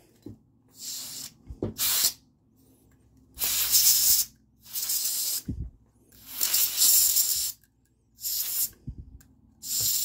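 Canned air blown in about seven short hissing blasts through its straw into the pivot of a two-bladed slip joint pocket knife, flushing oil and production grit out of the joint.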